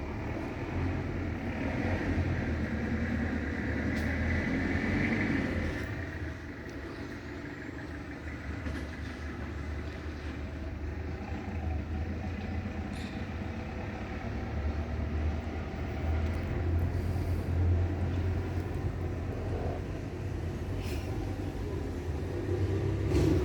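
Street traffic: vehicles running and passing, a steady low rumble that swells and fades a few times.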